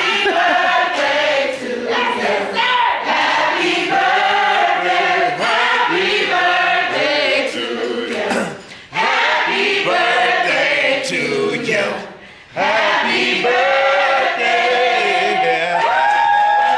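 Several voices singing together, like a choir, with two short breaks partway through and long held notes near the end.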